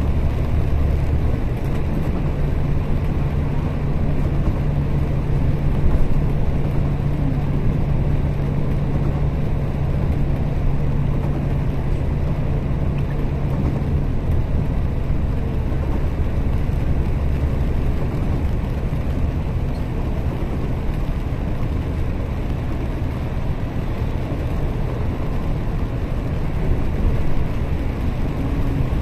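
Bus engine running at cruising speed with a steady low drone and road noise, heard from inside the bus; the drone's pitch shifts about halfway through.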